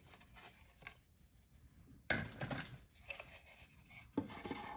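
Faint handling noises as a painted laser-cut building panel is picked up and moved over a tabletop: a scrape and rustle about two seconds in, then a few small clicks and light rubbing.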